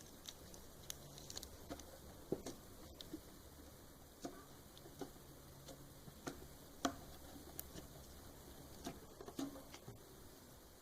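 Slime being squished and worked by hand, making faint, irregular small clicks and pops, two of them sharper than the rest.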